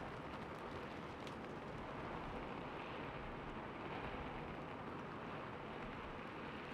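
Steady rain falling on a rooftop, an even hiss with a few sharp single drop taps in the first second or so.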